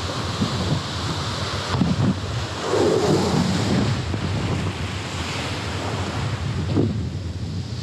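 Ocean surf breaking and washing over the rocky shore, with wind buffeting the microphone; the surge swells louder about three seconds in.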